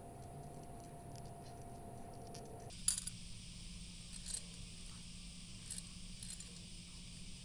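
Faint, light clicks of small sugar-shelled chocolate candies and a ceramic plate being handled, the candies tapping against each other and the plate. A slightly louder clink comes just before three seconds in, then a few softer ones.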